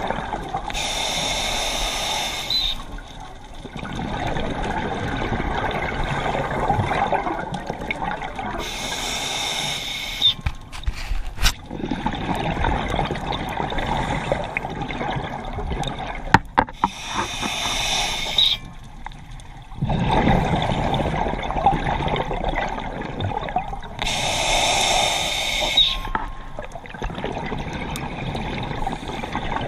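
Scuba diver breathing underwater through an open-circuit regulator: a hissing inhalation about every eight seconds, each followed by a longer rush of exhaled bubbles. A few sharp clicks come around the middle.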